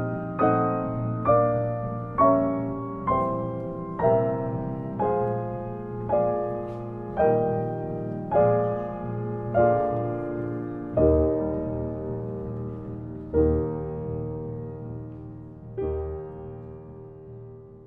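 Grand piano played solo, with chords struck about once a second and each left to ring and die away. The strikes grow further apart and softer toward the end, the phrase slowing and fading out.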